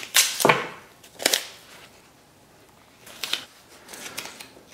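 Masking tape and a paper towel being handled on a countertop: a few short crinkles and crackles as tape is pulled and pressed along the top of a folded paper-towel pouch.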